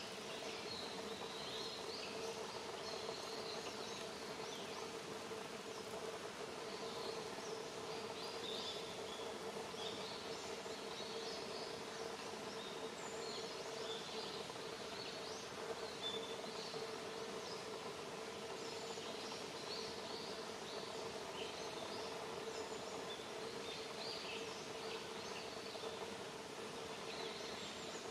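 Outdoor countryside ambience: small birds giving short, high chirps again and again over a steady low background hum.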